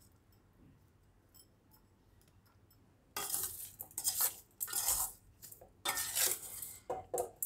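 Metal spoon scraping and clinking against dishes as chunks of raw mango salad are spooned into a glass bowl: faint clicks at first, then a run of loud scrapes and clinks starting about three seconds in.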